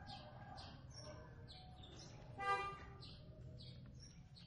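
A small bird chirping over and over, quick falling chirps about twice a second. About two and a half seconds in, a horn toots once briefly and loudly.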